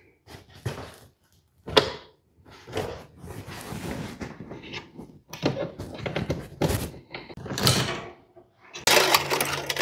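Electrical wires being pulled and fed through a plastic junction box and panel knockout by hand: irregular scraping, rustling and light knocks. Near the end a steadier noise with a low hum starts.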